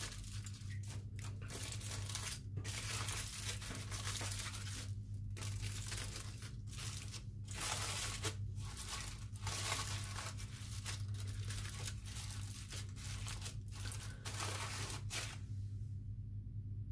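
Aluminium foil crinkling and crumpling in irregular rustling bursts as it is folded and pressed by hand around a turkey leg, stopping about a second before the end. A steady low hum runs underneath.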